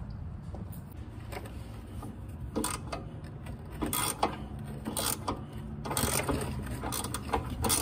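Hand ratchet wrench clicking in quick irregular runs while a car's rear shock absorber mounting bolt is turned. The clicking starts about two and a half seconds in.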